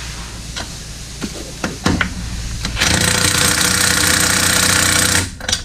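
Impact wrench hammering, loud and steady for about two and a half seconds, starting and stopping abruptly, as it runs a bolt on the rear axle. A few light clicks and knocks of tools and metal parts come before it.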